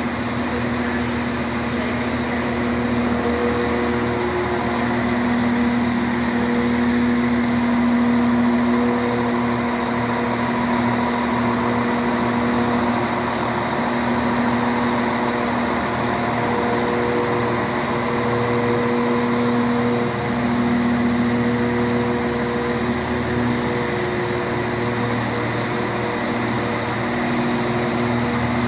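Steady diesel engine hum from a new train moving slowly along the platform, with a low drone and a couple of steady tones that waver slightly.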